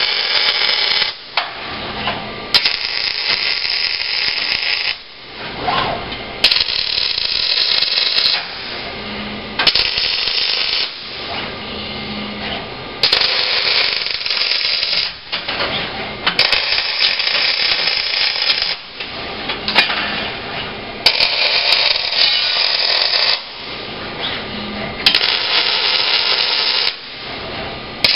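MIG welding arc at an OTC robot arm's welding torch, struck in a series of short welds, about nine in all, each one to two and a half seconds long, with brief quieter gaps between.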